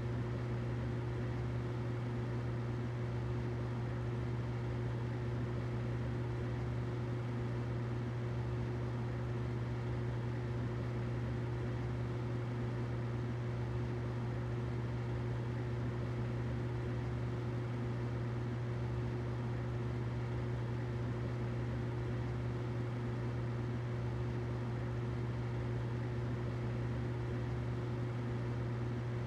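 Humidifier running: a steady, unchanging low hum with a faint tone above it and a soft even hiss.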